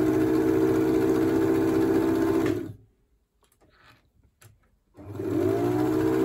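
Elna Lotus SP electric sewing machine running steadily as it stitches, stopping about two and a half seconds in. After a short pause with a few light clicks, it starts up again, its pitch rising as it gets up to speed.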